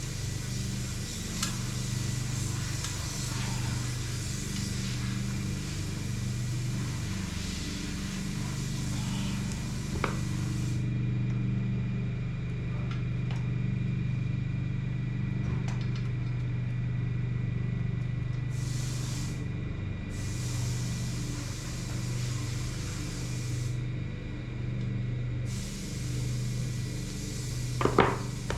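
Lawn mower engine running steadily, its drone slowly swelling and fading, with a couple of sharp clicks from handling the bike.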